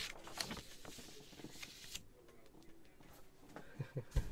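Faint rustling of a paper sheet being handled and moved aside, with light clicks. This is followed by a quiet stretch, then a few soft low thumps near the end from handling on the table.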